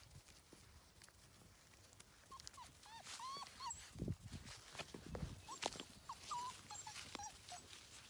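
Young Labrador puppies whimpering in short, high whines that rise and fall, in two bouts: about two seconds in and again around six seconds in. Between the bouts come a couple of dull thumps and rustling in the grass.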